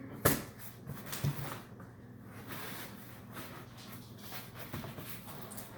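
Scissors and hands working at a taped cardboard box to open it: a sharp snap about a quarter second in, then scattered small clicks, scrapes and rustling of the cardboard.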